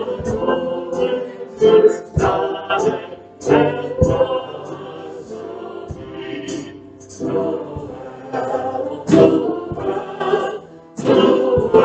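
A small mixed group of women and men singing a song together through microphones.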